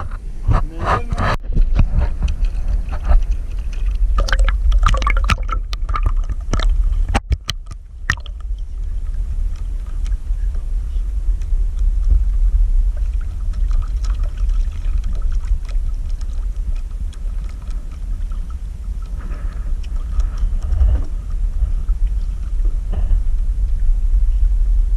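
Steady low rumble of wind on the microphone, with indistinct voices and a few sharp knocks in the first several seconds.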